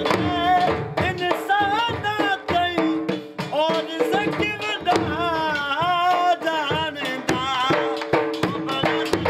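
A man singing a Saraiki folk song through a microphone in long, wavering, ornamented lines, over a dhol beaten with sticks in a fast, steady rhythm. Steady held tones sound underneath throughout.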